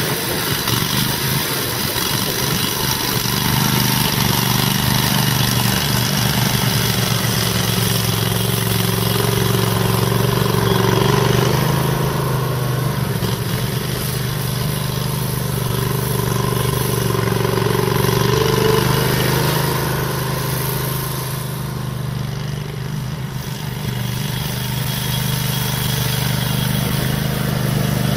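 John Deere 318 garden tractor, repowered with a 20 horsepower Honda engine, running steadily while pushing dirt with its front blade. The engine pitch rises a little twice partway through.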